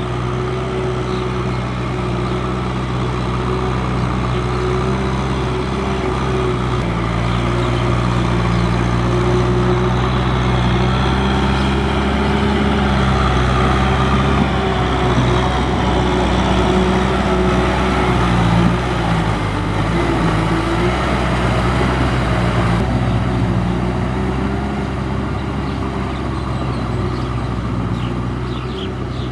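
Tractor diesel engine running hard under load, its pitch rising and falling several times as it revs.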